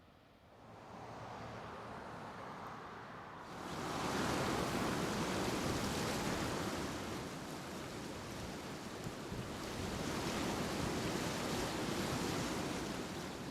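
Steady rush of fast-flowing river water, faint at first, growing louder about a second in and again at about three and a half seconds.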